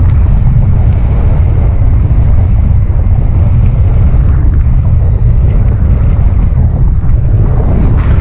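Wind buffeting an action camera's microphone in paragliding flight: a loud, steady low rumble of rushing air.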